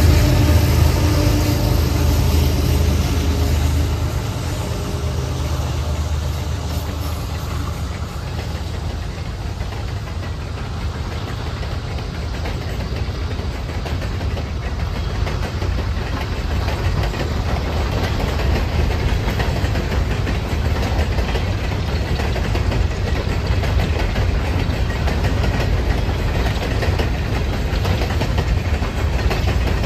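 Diesel locomotive engine passing close by, its tone fading over the first few seconds. Then the steady rolling noise of train cars going by on the rails.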